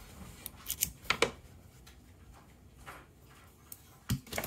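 Sharp little clicks of a lock cylinder and its key being handled and worked, strongest about a second in, then a knock near the end as the lock is set down on a table.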